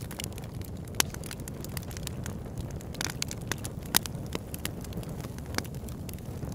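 Wood fire crackling in a fireplace: a steady low rumble with scattered sharp pops and snaps, the loudest about a second in and again near four seconds in.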